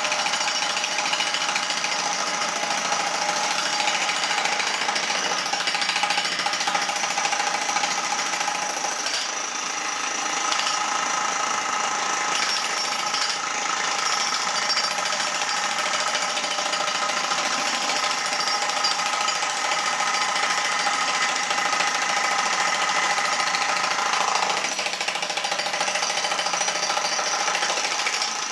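Two electric demolition breakers, a 15 kg Hilti TE 1500 and a 30 kg DeWalt, hammering together without a break as their pointed chisels chip into concrete blocks.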